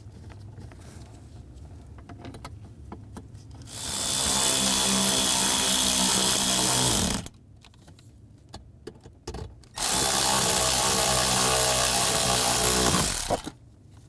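Cordless drill-driver running twice, about three and a half seconds each time, driving the lower kick panel's screws back in.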